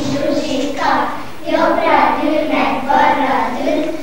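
A group of young children singing together in unison, in syllable-length phrases with held notes.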